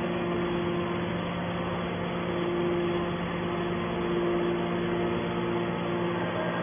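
Hydraulic scrap-metal baler's power unit running, a steady machine hum with a low tone and a higher tone that swells and fades every second or two.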